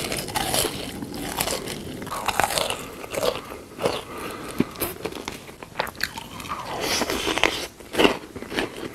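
Close-miked eating sounds: a person biting and chewing crunchy food, with irregular crunches and short pauses between them.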